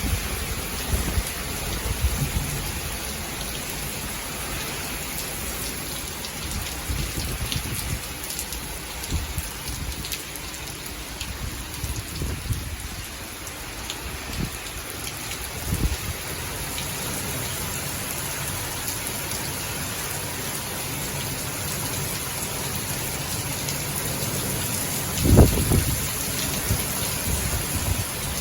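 Heavy typhoon rain falling steadily, an even hiss. Short low thumps come now and then, with a louder low rumble about 25 seconds in.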